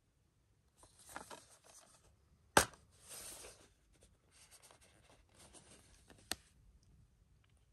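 Blue plastic Blu-ray case being handled and snapped open: rustling of plastic against the hands, a sharp click about two and a half seconds in as the case's catch lets go, then more handling and a smaller click about six seconds in.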